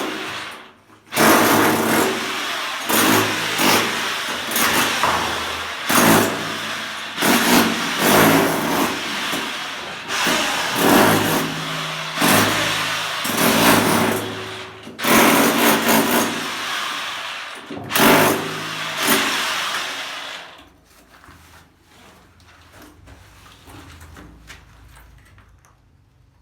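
A handheld power tool running hard in repeated surges, one every second or so, then stopping about twenty seconds in.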